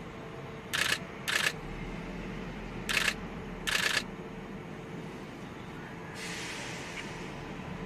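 Four short camera shutter sounds from photographers' cameras, in two pairs about half a second apart, over a low steady outdoor background. A steady hiss comes in about six seconds in.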